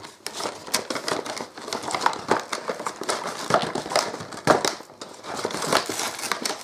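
A cardboard toy box being opened by hand, its plastic packaging and cardboard insert handled, giving irregular crinkling and crackling.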